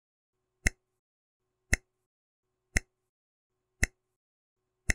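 Countdown timer sound effect: sharp clock-like ticks, evenly spaced about one a second, five in all.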